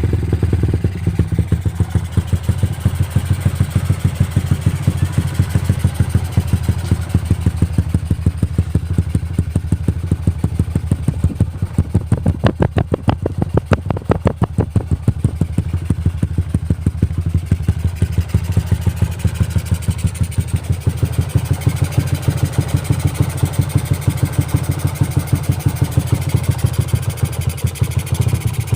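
Yamaha LC135 single-cylinder four-stroke engine idling through a Yoshimura tri-oval exhaust fitted with a 4 mm jackrod. It gives a deep, steady exhaust beat with even pulses, a little sharper for a few seconds around the middle.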